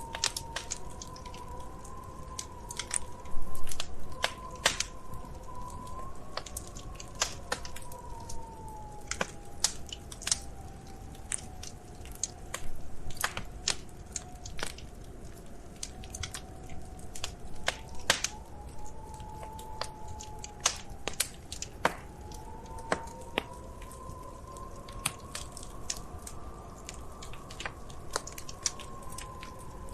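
Wood fire crackling, with irregular sharp snaps and pops and a louder burst of pops about three and a half seconds in. A faint, slowly wavering hum runs underneath.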